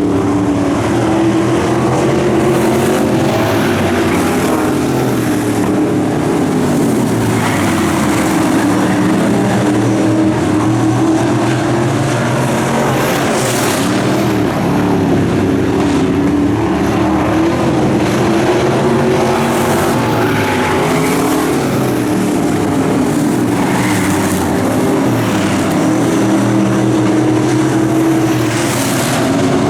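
Dirt-track race car engines running hot laps, loud and continuous, their pitch rising and falling as the cars go around the track.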